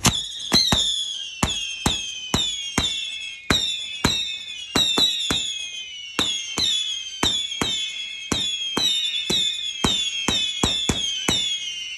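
A "Raining Tears" 259-shot consumer fireworks cake firing shot after shot, about two to three a second. Each launch thump is followed by a whistle that falls in pitch.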